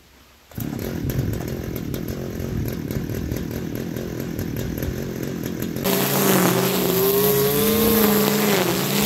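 Two-stroke brushcutter engine that comes on abruptly about half a second in and runs roughly at low speed with a fast, even firing rhythm. About six seconds in it runs at high revs with a steady pitched whine that wavers and dips briefly near the end as it cuts through grass.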